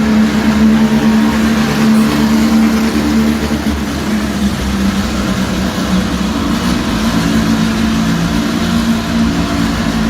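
The restored 1972 Fiat Abarth's engine running steadily; its note drops slightly about seven seconds in.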